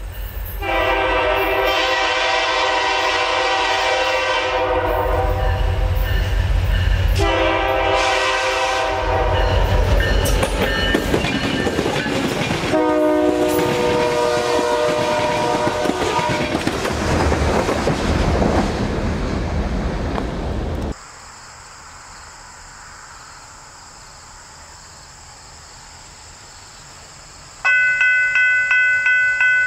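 Freight diesel locomotive horn sounding a long blast, a short one and then a lower-pitched blast, over the heavy rumble and wheel clatter of the train passing close by. After a sudden cut to a quiet hiss, a grade-crossing bell starts ringing rapidly near the end.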